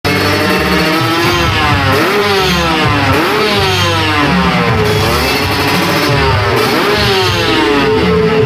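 Kawasaki two-stroke motorcycle engine on a chassis dynamometer, revved up and down again and again in quick rising and falling sweeps, settling to a steadier note near the end.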